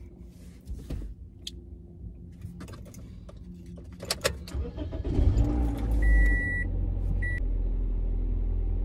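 Car keys jangle and click at the ignition, then the car's engine starts about five seconds in and settles into a steady idle. A dashboard warning chime beeps soon after, one longer beep and then a short one.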